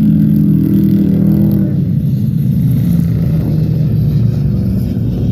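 Engines of several rear-wheel-drive ice-racing cars running hard and revving as the pack laps the track, their pitch rising and falling.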